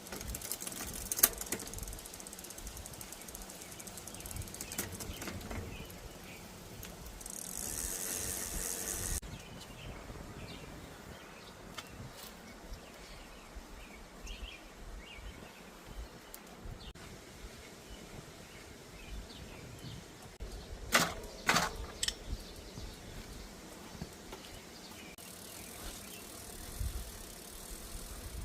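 Hands-on work on a mountain bike's drivetrain in a workshop: scattered light metallic clicks and ticks, a sharp click about a second in, and a quick cluster of clicks a little past twenty seconds. A steady two-second hiss comes about seven seconds in, and a fainter one near the end.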